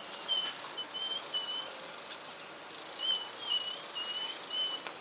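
A bird chirping: a quick run of short, high, slightly wavering chirps, a pause of about a second and a half, then a second run.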